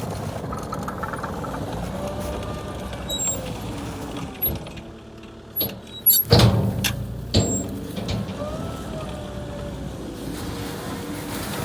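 Small John Deere loader's engine running steadily, with a faint whine rising and falling twice as it works, and a few loud knocks about six to seven and a half seconds in.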